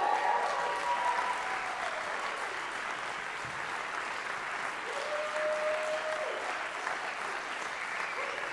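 Audience applauding in a concert hall.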